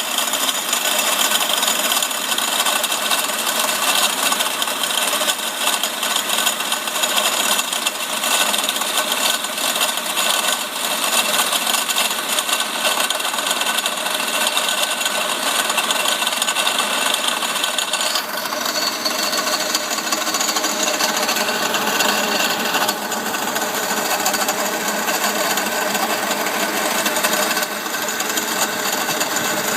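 Mercedes-Benz CL500 (W215) tandem pump, the ABC suspension hydraulic pump combined with the power-steering pump, rattling steadily with the engine running. The rattle persists even with a new pump fitted, and the owner takes it for a broken or loose bearing. Its tone changes a little after about 18 seconds.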